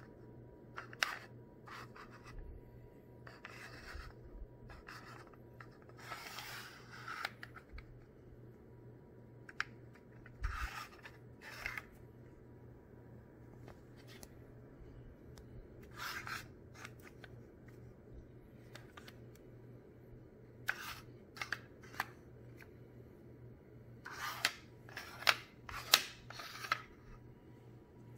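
Handling noises: a small model building being picked up, turned and set down on a metal work sheet, giving light scrapes, rubs and taps at irregular intervals, with a cluster of sharper taps near the end. A faint steady hum runs underneath.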